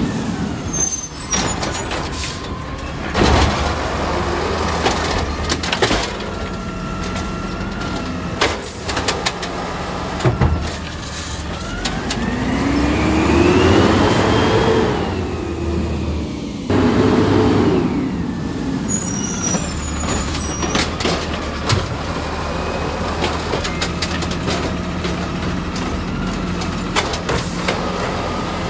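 Automated side-loader garbage truck working a collection: the diesel engine runs steadily while the hydraulics whine up and then back down in pitch as the arm lifts and dumps a cart, with sharp clanks of the cart and bin gear throughout.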